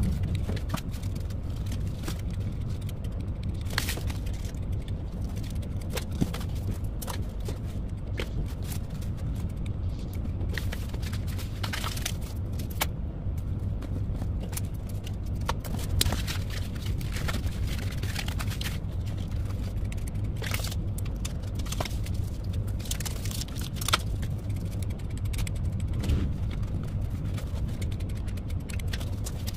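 Steady low background hum with scattered light clicks, taps and short scrapes as foam craft pieces are handled and pressed on with a hot glue gun.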